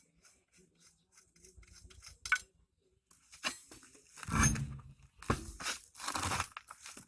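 Scraping and rasping from hands-on work at the car's wheel during a tyre change, with faint clicks at first, then several rough bursts in the second half.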